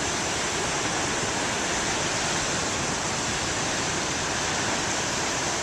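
Heavy ocean surf: a steady, even wash of big waves breaking on the shore.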